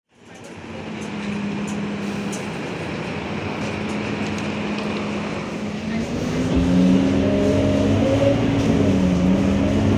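Scania Euro IV single-deck city bus's diesel engine running at idle with a steady hum. From about six and a half seconds it is louder and fuller, heard from inside the bus cabin, with tones that shift in pitch.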